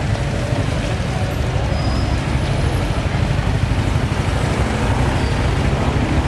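Busy street-market ambience: a steady low rumble of passing vehicle traffic under a background murmur of voices.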